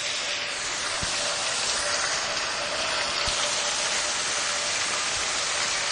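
Water jet driving a home-built Pelton turbine wheel at high speed: a steady rush of spraying and splashing water off the spinning buckets, with a faint steady hum underneath.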